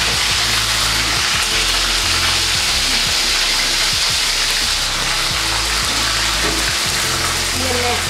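Tuna steaks sizzling steadily in hot oil with garlic in a frying pan as they are pan-seared.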